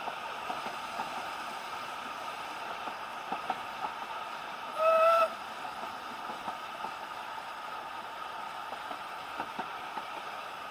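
A steam locomotive whistle gives one short toot about five seconds in, a single clear note lasting about half a second. Underneath is the steady running noise of the moving train, with light rattles and clicks.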